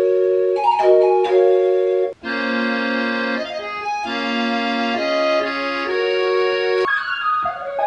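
Music: organ-like synth chords held and changing every second or so, with a brief break about two seconds in and a busier, higher melody near the end.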